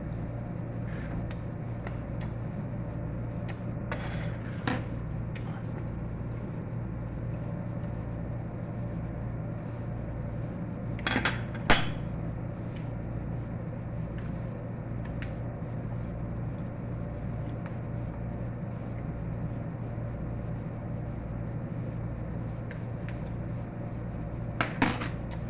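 A knife clicking and knocking against dishware a few times while watermelon is cut, the loudest pair of knocks about eleven to twelve seconds in and another pair near the end. Under it, the steady low hum of a running fan.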